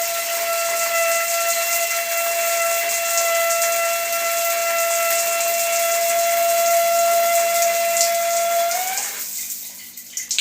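Water running through a shower with a steady high whistle, several overtones above it, over the hiss of the spray. The whistle rises slightly and cuts off about nine seconds in, and the water sound fades soon after. This is the shower's strange noise, which the owner puts down to a worn rubber washer in the water valve.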